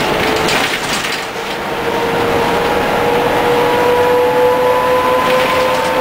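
Leyland Lynx single-deck bus under way, heard from the driver's cab: the drivetrain runs with a steady whine that rises slowly in pitch, over road noise and rattling of the body and fittings, heaviest in the first second and again near the end.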